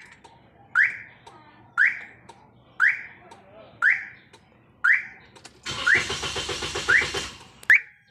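Toyota engine being cranked by the starter for about two seconds, about halfway through, without catching, consistent with a no-start fault. Throughout, a short sharp rising chirp repeats about once a second.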